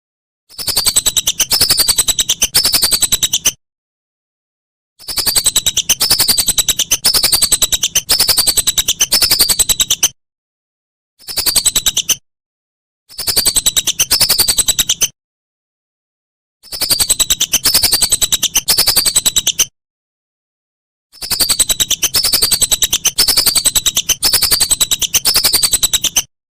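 Whistling duck (belibis) calling: rapid runs of high, falling whistled notes, in six bouts of one to five seconds separated by silent gaps.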